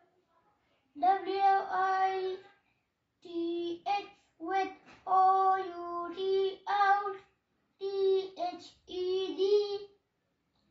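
A young boy reciting aloud from a book in a sing-song chant, in short phrases on steady held notes with brief pauses between them.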